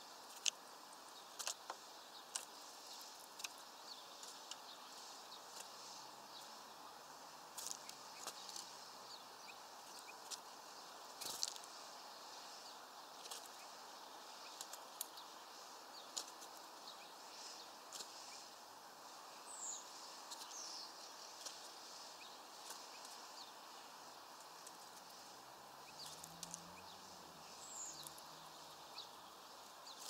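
Faint outdoor background hiss with scattered sharp clicks and ticks, and a few brief high bird chirps about two-thirds of the way in and again near the end. Faint low hums come twice, once early and once late.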